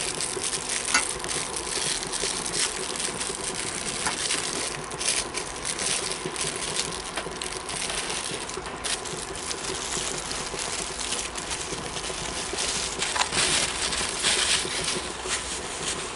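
Plastic wrapping and paper crinkling and rustling as a ration napkin packet is torn open and the napkin unfolded, with many small crackles and clicks.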